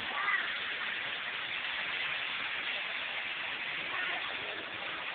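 A steady hiss of outdoor background noise, with faint voices briefly near the start and again about four seconds in.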